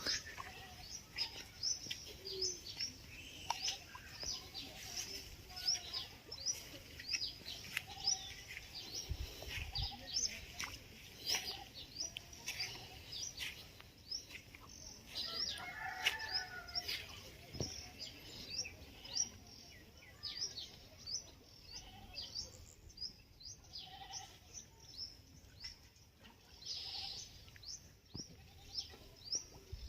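Small birds chirping continuously: many short, high chirps, each falling in pitch, a few every second.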